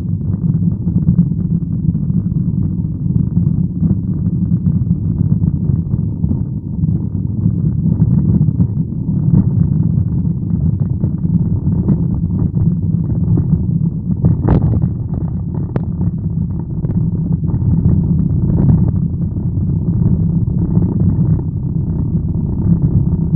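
Steady low rumble of a car being driven, heard from inside the cabin: engine and road noise. A few brief clicks, the sharpest about halfway through.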